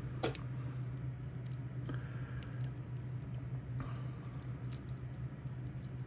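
Faint scattered clicks and small handling noises of fingers working stripped copper wires and a plastic power-plug body, over a steady low hum.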